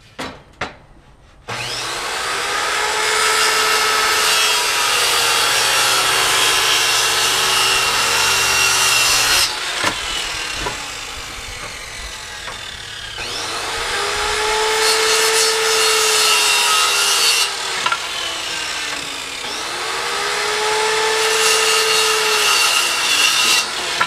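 Electric power saw cutting through a wooden board, its motor pitch sagging and recovering as the blade bites. The cut starts about a second and a half in, eases off near the middle, then picks up again in two more passes.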